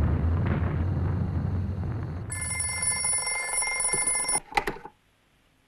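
A deep rumble of bomb blasts dies away. About two seconds in, a telephone bell rings steadily for about two seconds, then cuts off as the phone is answered.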